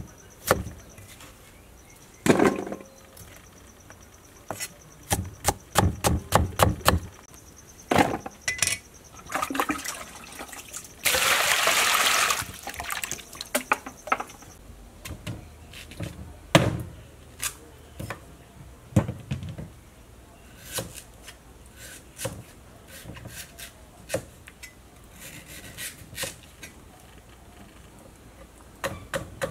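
Knife chopping fresh bamboo shoot on a wooden cutting board: sharp knocks, with a fast run of strokes about five seconds in. About eleven seconds in, water pours into a metal pot for a second and a half, followed by scattered clinks and knocks.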